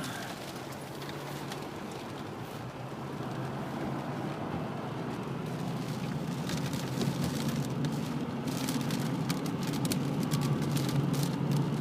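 Storm wind at about 144 km/h blowing hard and buffeting, growing louder over the second half, with many sharp rain spatters in the later part.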